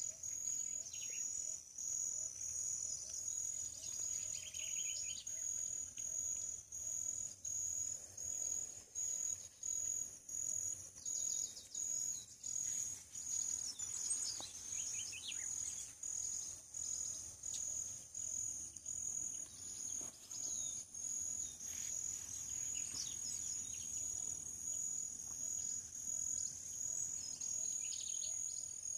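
Insects trilling in a steady high-pitched chorus that pulses in a regular rhythm, with scattered short bird calls.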